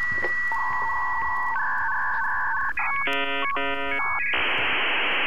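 Electronic signalling tones: a steady high tone, then a pulsing lower tone with a second steady tone over it, then a brief stack of chord-like tones, giving way about four seconds in to a steady hiss like a data transmission.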